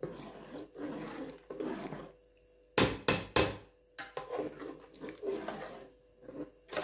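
A slotted metal spoon stirring rice through boiling water in a steel pot, with swishing and scraping strokes. About three seconds in come three sharp knocks in quick succession, the spoon striking the pot, and another knock near the end.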